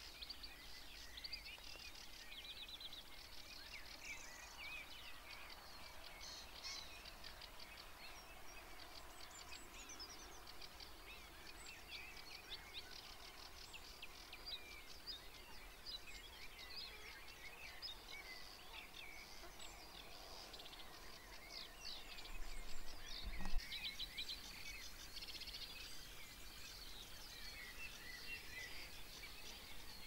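Early-morning chorus of many songbirds singing at once, with overlapping chirps and trills over faint outdoor background noise. A single low thump comes about two-thirds of the way in.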